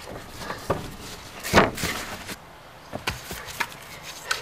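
Footsteps and scattered knocks of a person moving along a wooden fence and among trees, with one loud thump about one and a half seconds in.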